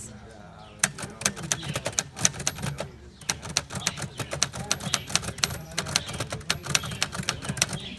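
Vintage manual typewriter being typed on: a quick, irregular run of key strikes, several clacks a second, as a short sentence is typed out.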